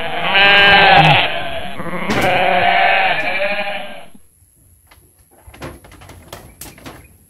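Goat bleating: two long, wavering bleats, the second starting about a second and a half in. A few faint knocks follow near the end.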